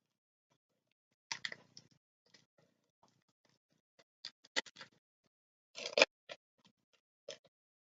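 Foil wrapper of a Pokémon trading card booster pack crinkling and tearing in scattered short bursts as it is worked open, the loudest burst about six seconds in; the wrapper is a tough one to open.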